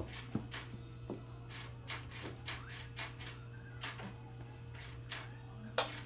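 Short plastic clicks from a toy radio-control transmitter's levers being worked, a dozen or so at uneven intervals with a louder one near the end, over a steady low hum.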